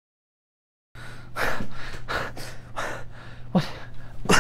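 Dead silence for about a second, then a man breathing hard in quick gasps, two or three a second, over a faint steady hum.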